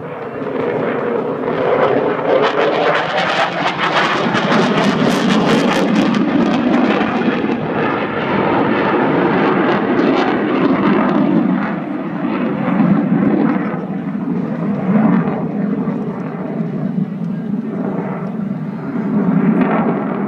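A Eurofighter Typhoon jet fighter flying over, the noise of its twin EJ200 turbofans. The jet noise swells about two seconds in and is loudest, with a crackling edge, around four to six seconds in. It then settles to a lower, steadier sound.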